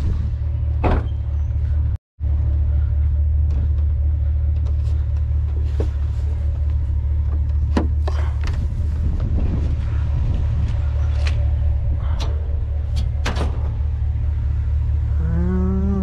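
Inside a car or truck on the move: a steady low engine and road rumble with scattered light rattles and clicks. The sound cuts out completely for a moment about two seconds in.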